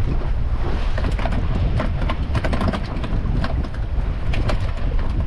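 Wind buffeting the microphone over a low rumble on a small fishing boat at sea, with water slapping against the hull in a run of short sharp splashes from about a second in.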